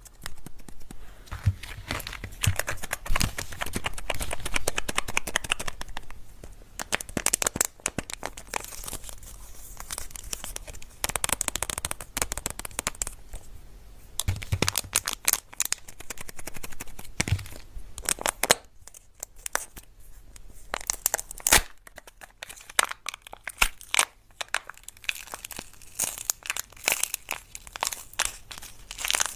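Candy and surprise-egg wrappers being torn open and crinkled, with many sharp crackles, thinning for a few seconds in the middle.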